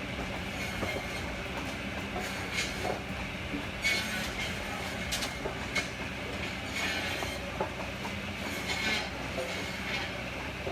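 Firewood processing machinery running steadily with a low hum, broken by irregular sharp metallic clanks and knocks as wood and steel parts strike each other.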